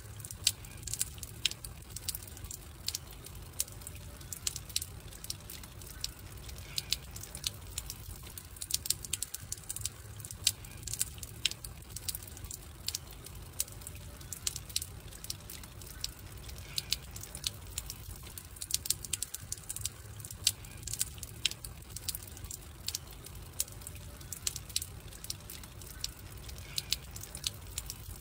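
Campfire crackling: irregular sharp pops and snaps over a low, steady rumble, as a short recording looped about every ten seconds.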